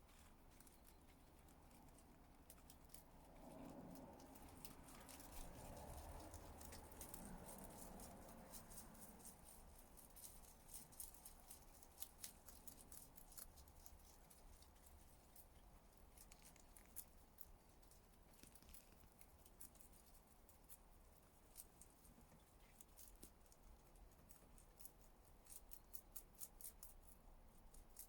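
Rabbit chewing salad leaves: rapid, faint, crisp crunching clicks that come in irregular runs.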